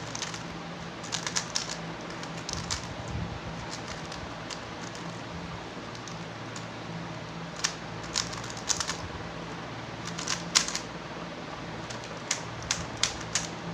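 3x3 Rubik's cube being turned by hand in a scramble: irregular bursts of sharp plastic clicks as the layers turn, over a steady low hum.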